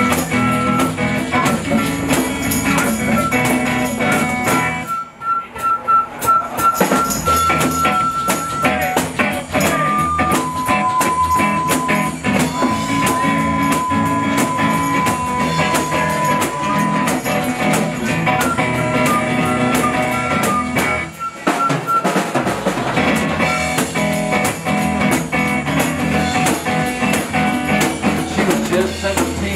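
Live acoustic band playing an instrumental break: a flute solo of long held notes over strummed acoustic guitar and congas, with two short breaks in the music.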